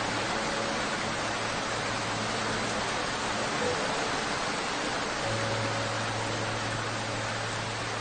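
Heavy rain falling steadily on leaves, an even hiss. Faint low held tones sit underneath and shift to a new note about five seconds in.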